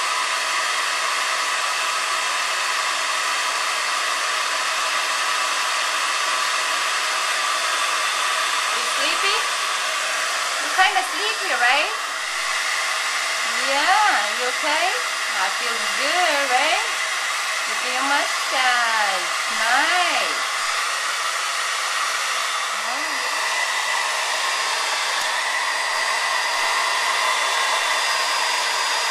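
Hand-held hair dryer blowing steadily on a wet Lhasa Apso's coat, a constant rushing airflow over its motor's whine. From about nine seconds in, for some fifteen seconds, a voice slides up and down in pitch over it.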